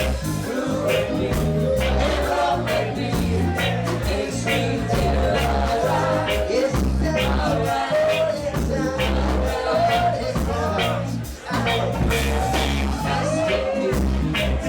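Live reggae band playing an instrumental stretch: a heavy bass line and a steady drum beat, with a wavering melody line over them.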